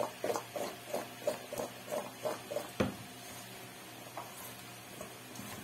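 Seasoned sweet potato and onion pieces tossed in a stainless steel bowl: a quick rhythm of swishes and thuds, about four a second, ending in a sharper knock about three seconds in. After that, fainter sounds of the pieces being mixed by hand.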